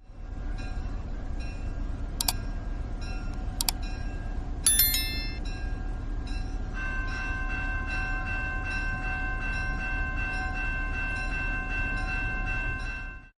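Train sounds: a steady running rumble with two sharp clicks, a short whistle-like tone about five seconds in, then a steady held horn-like tone from about seven seconds on.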